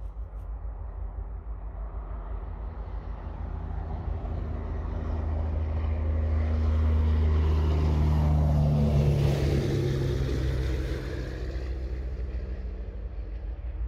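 A motor vehicle passing close by: engine and road noise swell to a peak, and the engine note drops in pitch as it goes past, about nine seconds in, then fades.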